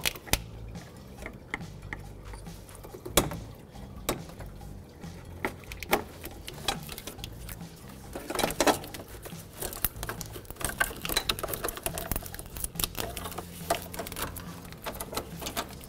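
Scattered light clicks and taps of plastic wiring-harness connectors and clips being worked loose by hand, over a low steady hum.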